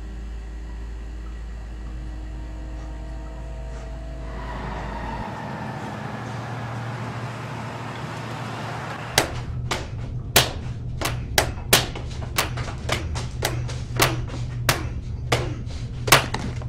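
Sustained music tones, then from about nine seconds in a series of sharp, irregular knocks or hits, a little under two a second.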